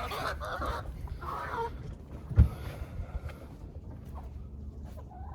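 A single dull thump about two and a half seconds in, over a low rumble, with a few fainter knocks afterwards.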